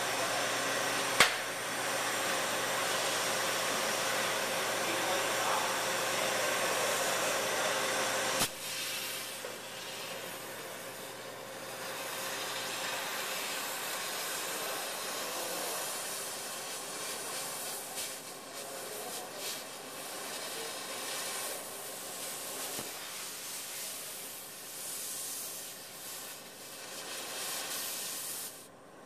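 Cutting torch flame hissing steadily, with a sharp click about a second in. The hiss drops suddenly about eight seconds in and then carries on quieter and wavering.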